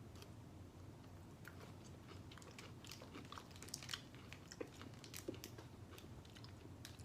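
Faint chewing of a chocolate snack: a scatter of small crisp clicks and crunches at an irregular pace.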